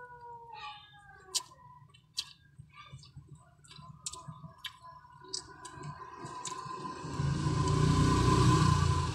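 Close-miked eating sounds: sharp lip smacks and chewing clicks as grilled fish and rice are eaten by hand. From about six seconds in, a rumbling noise swells and is loudest near the end.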